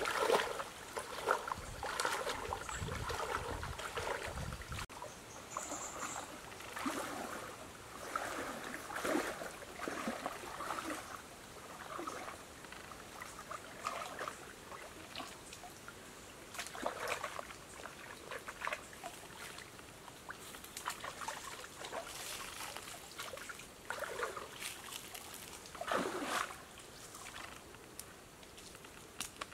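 Shallow stream water splashing and sloshing in irregular bursts as a person wades through it and pulls a large fish through the water. The splashing is heaviest in the first few seconds, then lighter and more scattered, with one stronger splash near the end.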